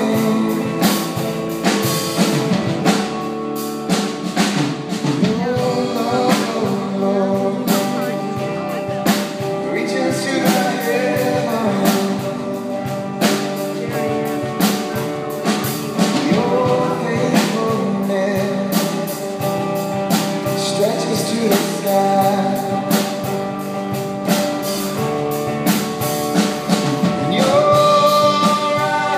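A live rock-style worship band playing: electric guitars and a drum kit keeping a steady beat, with vocals carrying the melody.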